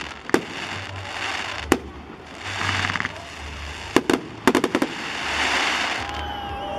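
Aerial fireworks going off: single sharp bangs of shells bursting, with a quick run of several bangs about four and a half seconds in, and a hissing crackle of burning sparks between them.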